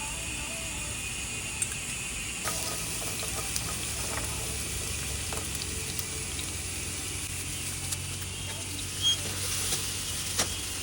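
Food sizzling in a frying pan, getting fuller about two and a half seconds in, with a few sharp clicks of a utensil against the pan.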